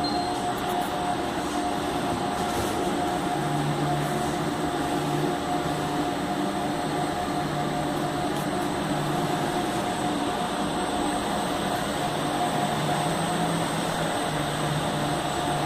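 DGI 250 wide-format solvent inkjet printer running mid-print: a steady mechanical whir with a constant mid-pitched whine and a low hum that fades in and out every few seconds.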